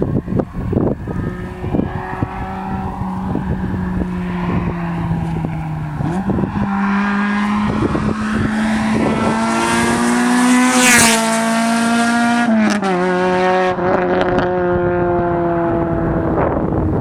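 Honda Civic Type R EP3's 2.0-litre four-cylinder VTEC engine at high revs through a straight-piped Buddy Club Spec 2 exhaust and AEM cold-air intake. Its note sags, jumps up about six seconds in and climbs to its loudest about eleven seconds in, then drops sharply in pitch and holds steady.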